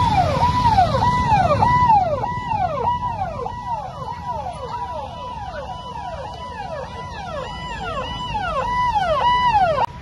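Electronic sirens on convoy vehicles, each cycle a brief held tone that falls in pitch, repeating about twice a second, with two sirens out of step overlapping for much of it. Engine rumble underneath, strongest in the first two seconds; the sound cuts off abruptly near the end.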